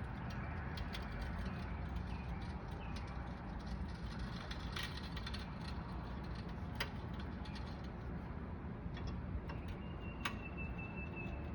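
Older hydraulic floor jack being let down under a car, its release valve opened and closed in steps to bleed the pressure: scattered light clicks and creaks over a steady low rumble, with a brief thin steady tone near the end.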